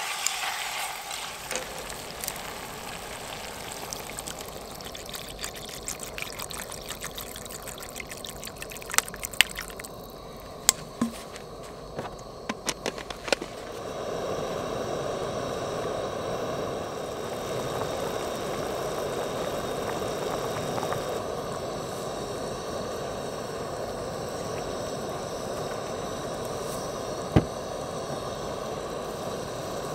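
Grouse meat sizzling in oil in a pot on a camp stove, with scattered sharp clicks and knocks. About 14 seconds in this gives way to a louder steady bubbling of the pot of water at a boil over the burner, with one sharp knock near the end.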